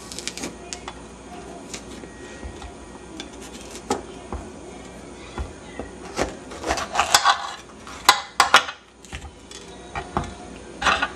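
A kitchen knife cutting a green bell pepper on a cutting board: scattered crisp cuts and knocks of the blade on the board, thickest in the second half and again near the end.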